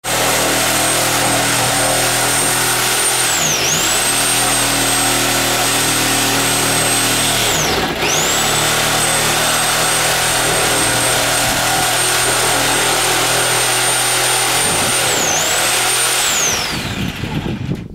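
Handheld electric power tool running continuously at full speed, with a high motor whine that bogs down briefly three times under load, then winds down and stops near the end.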